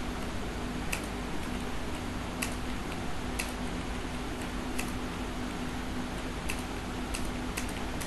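Computer keyboard keys clicking: about ten scattered keystrokes as short entries are typed, over a steady low hum and background hiss.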